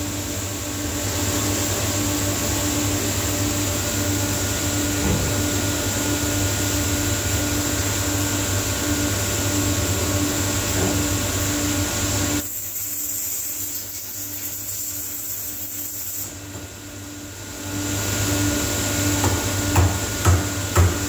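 Ghiringhelli centerless grinding machine running with a steady noise, a low hum and a pulsing tone. About two-thirds of the way in, much of the noise cuts off suddenly for several seconds, then builds back up, and a few sharp knocks come near the end.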